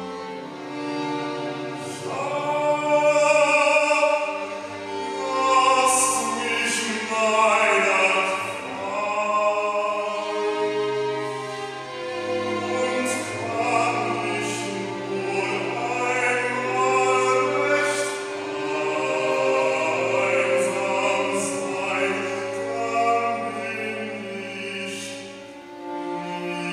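A man's classical solo voice singing a German art song in operatic style, over a string quartet bowing sustained accompaniment.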